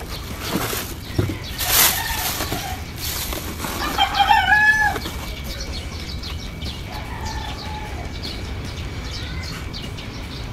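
Cardboard box and plastic wrap rustling as a loudspeaker driver is lifted out and handled, with a rooster crowing once, about a second long, about four seconds in.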